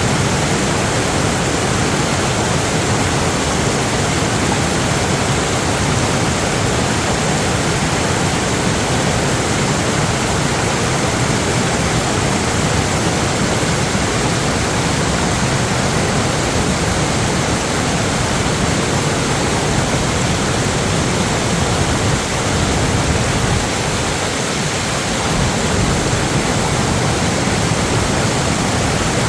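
Loud, steady rushing of water, an even hiss with no breaks.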